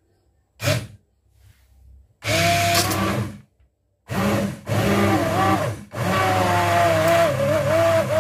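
Hand-held immersion blender puréeing a pot of cooked pumpkin and sweet potato soup, switched on and off in bursts: a brief pulse under a second in, then several runs of the motor, the last nearly three seconds long, its pitch wavering as it churns.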